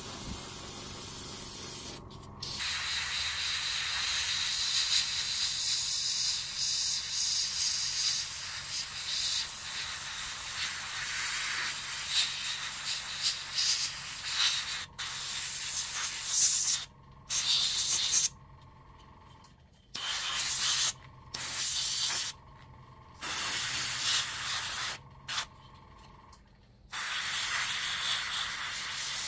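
Airbrush hissing as it sprays paint onto a plastic scale model, in one long steady pass and then in short bursts that stop and start several times in the second half.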